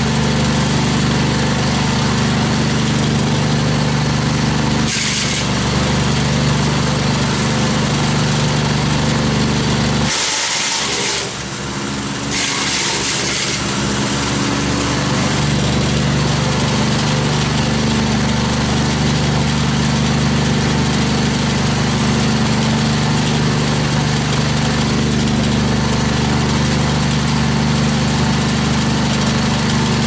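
Trailer-mounted wood chipper's gas engine running steadily while pine branches are fed through it, with short bursts of shredding noise as branches are chipped: once about five seconds in, a longer stretch from about ten to fourteen seconds, and again at the end. Around ten seconds the engine note drops briefly under the load of a bigger bunch of branches, then picks back up.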